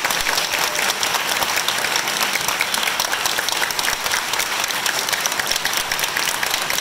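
Audience applauding steadily, a dense mass of overlapping hand claps.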